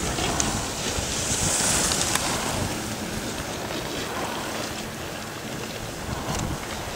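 Wind on the camera microphone: a steady rushing hiss that swells briefly about a second and a half in.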